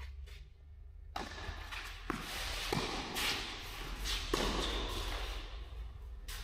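Tennis rally on a clay court: several sharp racquet-on-ball hits, with a steady scuffing hiss from shoes sliding and shuffling on the clay.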